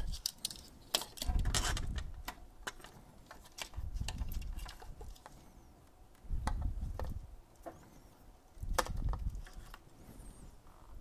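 Faint handling noise of hands working wires on a 3D printer's hotend: small scattered clicks and rustles, with a few short low bumps.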